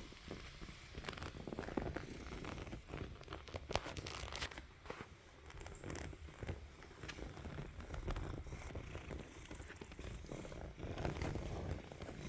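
Tabby cat purring close up, with many short clicks and rustles throughout.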